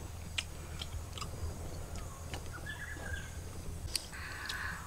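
Quiet outdoor background with a steady low hum, a few faint scattered clicks and a faint bird chirp around the middle.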